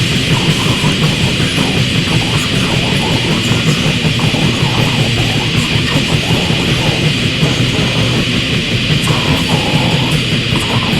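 Death grind / noise grind: distorted electric guitar riffing in a dense, noisy wall of sound over fast, pulsing drums.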